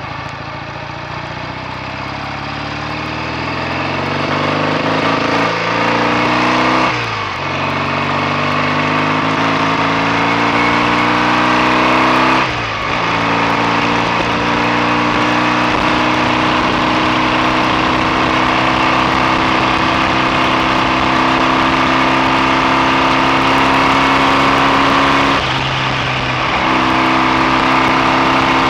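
BSA A65 650 parallel-twin motorcycle engine under way, accelerating with the pitch climbing and dropping sharply at two upshifts, about seven and twelve seconds in. It then holds a steady cruise, with a brief dip in engine note a few seconds before the end.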